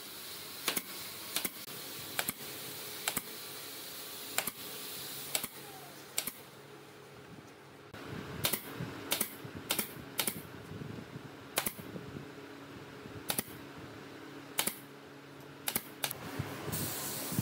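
Pneumatic brad nailer firing nails into a wooden cabinet's thin back and side panels, a sharp snap with each shot, roughly one a second, some sixteen shots in all. A low steady hum comes in about halfway through.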